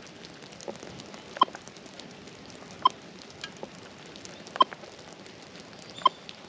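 Minelab Equinox 600 metal detector beeping at its button presses while target ID numbers are being notched out in its settings: four short beeps, all the same pitch, about a second and a half apart.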